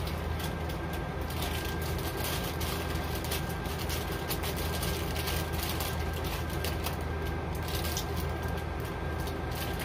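A steady low mechanical hum with a thin high whine, under irregular rustling and crinkling of packaging being handled.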